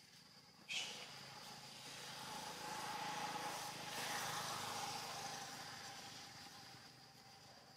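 A motor vehicle passing by, its sound swelling over a few seconds and then fading away, with a sudden short sharp sound about a second in.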